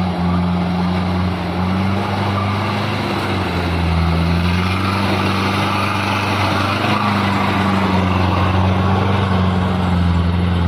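Diesel engine of a truck loaded with oil-palm fruit, pulling steadily under load with a deep, even drone that wavers slightly in pitch.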